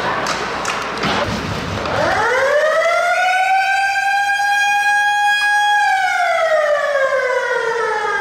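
A few knocks and clatter of play in the first two seconds, then a hockey arena's motor-driven siren winds up in pitch, holds one steady wail for about three seconds, and slowly winds down.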